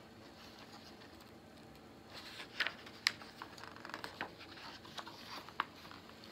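Hardcover picture book's cover and pages being turned and pressed flat by hand: a run of paper rustles and crisp flicks starting about two seconds in, with several sharp snaps.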